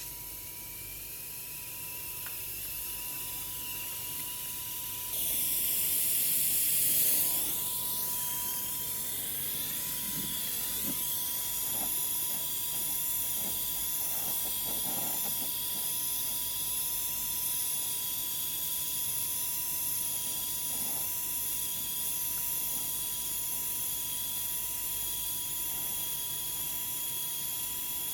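Gas blowtorch flame hissing steadily while brazing copper refrigeration pipe, turned up louder about five seconds in.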